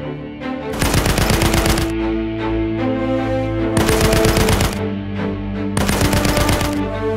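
Three bursts of machine-gun fire from an F4U Corsair's wing guns, each about a second long, heard over background music with sustained notes.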